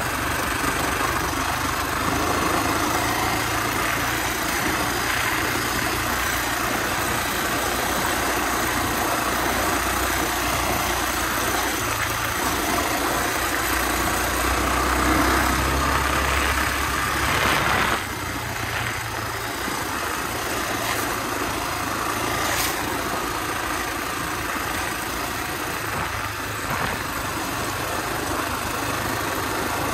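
Honda XR250R's single-cylinder four-stroke engine running steadily while the dirt bike is ridden along a forest track; the loudness drops a little about eighteen seconds in.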